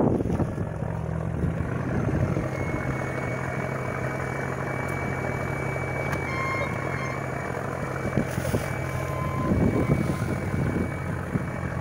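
Fishing boat's inboard engine running steadily, a low drone with a thin high whine over it, under wind and water noise.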